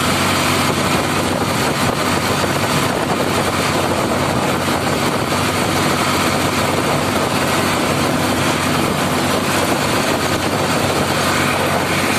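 Ford 3600 tractor's three-cylinder engine running steadily at full speed as the tractor drives along the road, its note holding constant throughout.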